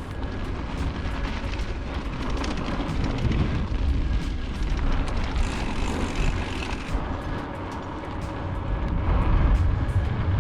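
Wind buffeting the microphone during a bicycle ride: a dense, uneven low rumble with frequent small knocks and rattles from the ride.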